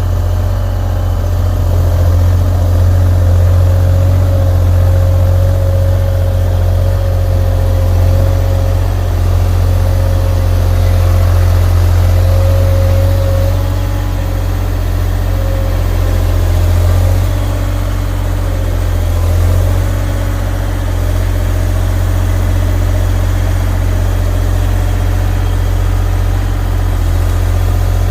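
Heavy equipment engine idling steadily, with a strong low hum and a steady whine above it that wavers slightly a few times.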